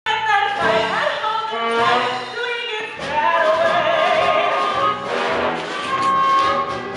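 Stage-musical song number: a chorus of voices singing over a live pit orchestra.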